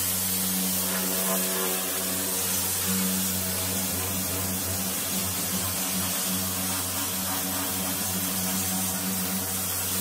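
Pressure washer running, its lance jetting water onto the rusty, paint-flaking steel floor of an old VW van to blast the paint off: a steady motor hum under the hiss of the spray.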